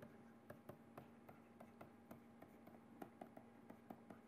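Faint, irregular ticks and scratches of a stylus writing on a tablet screen, over a faint steady hum.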